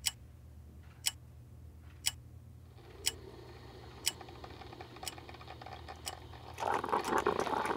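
Wall clock ticking, one sharp tick a second, over a low steady hum. Near the end the ticks give way to a louder, rough noise.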